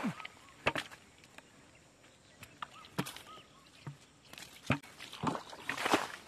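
Muddy water with small fish poured out of a plastic bucket onto a net on wet ground: a splashing gush that builds about five seconds in and is loudest near the end. A few single knocks come before it.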